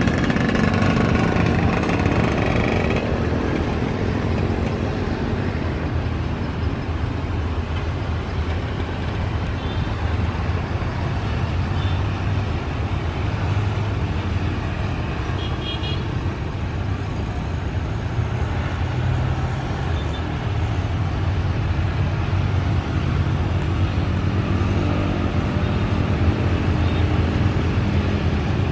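Steady road traffic noise, with cars and motorcycles passing continuously.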